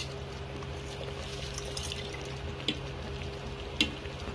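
Soaked basmati rice added by hand into boiling spiced water in a pot: a soft watery splashing and bubbling over a steady low hum, with two sharp clicks, the louder one near the end.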